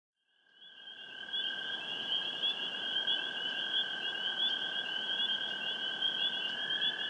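Steady, high-pitched droning ambience that fades in over about the first second, with a soft hiss beneath it.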